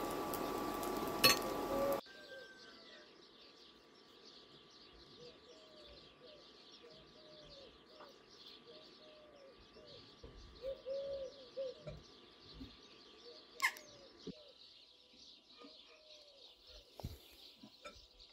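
Birds calling: repeated low calls over a steady high chirring, with one sharp click past the middle. A louder steady sound with a hum in it fills the first two seconds and cuts off suddenly.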